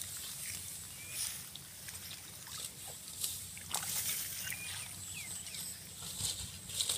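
Footsteps swishing through long grass and rice stalks, irregular rustling and brushing, with a few short faint high chirps scattered through.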